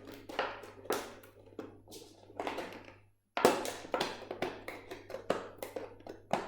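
Scissors snipping and cutting round a small hole in the wall of a plastic bottle: a series of irregular sharp snips and clicks, with a short break about three seconds in.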